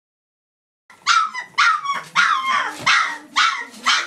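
A 24-day-old German Shepherd puppy yapping, a run of short high-pitched barks about two a second, starting about a second in.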